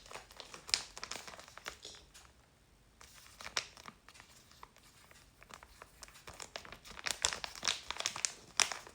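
Packaging being crinkled and handled in an ASMR unboxing, a run of sharp crackles with a short lull about two seconds in, growing busier near the end.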